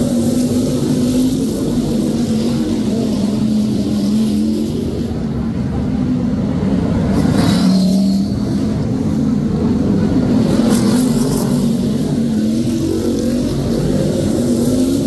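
Brisca F1 stock car engines running hard as the cars race round the oval, their pitch rising and falling as they accelerate and pass, with a short rising whine about halfway through.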